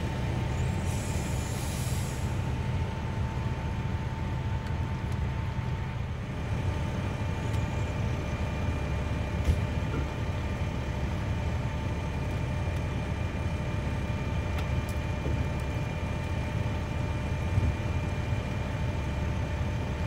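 Large vehicle engine idling with a steady low rumble and a faint steady whine, a short hiss about a second in, and two sharp clicks, one about halfway through and one near the end.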